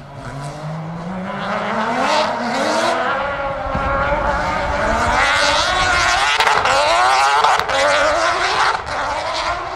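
Peugeot 205 Proto off-road rally car accelerating hard out of a turn on a dirt stage, its engine revving up in rising pitch and getting louder as it drives past, loudest about six to eight seconds in.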